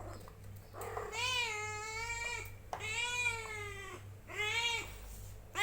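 A kitten about 45 days old meowing: three drawn-out meows, the first two over a second long and the third shorter, each rising and then falling in pitch, with a fourth starting at the very end.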